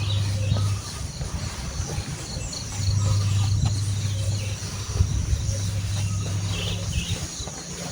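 Birds chirping in short high calls over a steady low rumble that drops away briefly about a second in and returns, then fades near the end.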